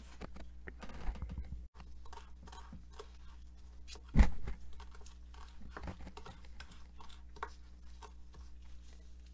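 Kitchen knife chopping fresh parsley on a plastic cutting board: a run of quick, light, uneven taps, with one much louder knock about four seconds in.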